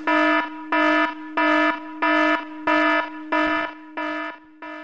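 Electronic alarm sound effect: a pulsing beep repeating about three times every two seconds over a steady underlying tone, growing fainter near the end.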